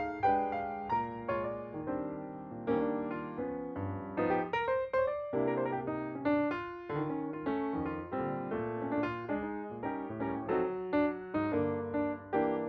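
Background music: a gentle piano melody of struck notes that ring and fade, one after another.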